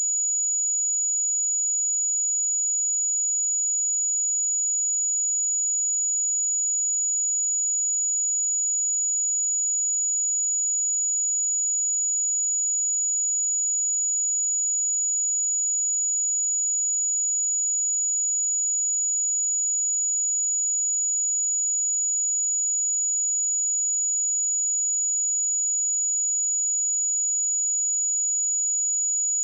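A pure 6874 Hz sine-wave test tone, one steady high-pitched whistle-like tone held at constant level.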